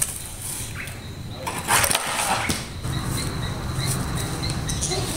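Insects chirping in a steady, regular pulse over a low outdoor rumble, with a brief louder rush of noise about two seconds in.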